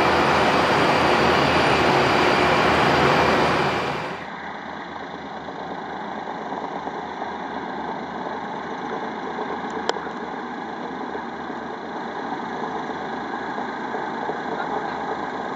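The three radial piston engines of a Junkers Ju 52 run at low power as it taxis. The sound is loud and close for about four seconds, then suddenly fainter and more distant, with a low, uneven throb.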